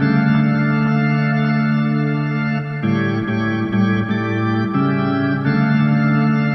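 Background music: a slow organ chorale of held chords that change a few times.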